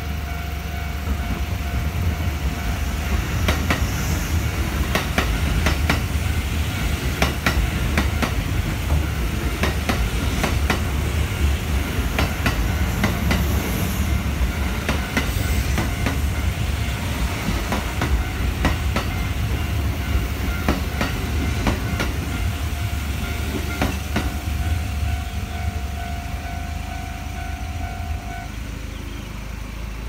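Kintetsu electric train passing over a level crossing: a steady low rumble with the wheels clacking over the rail joints several times a second, easing off in the last few seconds. A steady electronic tone from the level crossing's warning bell rings under it and stops a little before the end.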